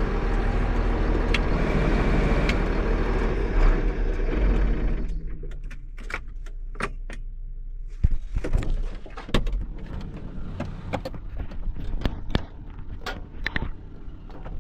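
Small tractor running steadily with its cab fan blowing; the sound drops away suddenly about five seconds in. After that come a string of sharp metallic clicks and clanks, typical of tools and steel parts being handled while unbolting a hitch.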